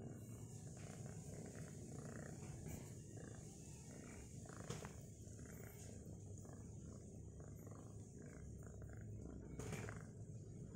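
Faint low rumble with soft rustling and two light taps, about five seconds apart, as a Persian kitten paws and mouths a hand in play.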